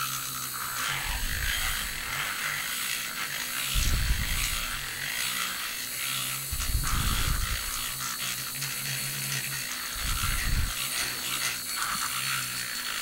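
Handheld battery-powered milk frother buzzing steadily as its whisk spins inside a small plastic bottle, mixing e-liquid. Three dull low thumps come about 4, 7 and 10 seconds in.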